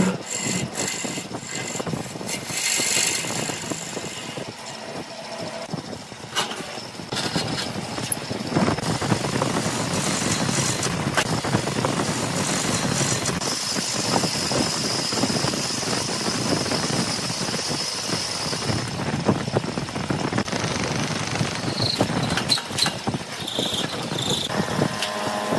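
Wood lathe running with a turning tool or abrasive working the spinning wood: continuous scraping and cutting noise with frequent small clicks, and a high steady squeal for several seconds in the middle.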